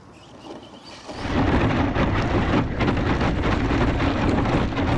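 Hobao Hyper GT 1/8 scale electric RC rally car driving over gravel, heard through a camera mounted on the car: a loud rumble of tyres and chassis on stones, with wind buffeting the microphone. The noise comes in abruptly about a second in.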